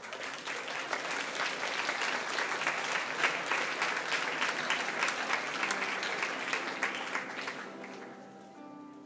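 Audience applauding, the clapping swelling and then fading toward the end. A few held musical notes come in under it over the last few seconds.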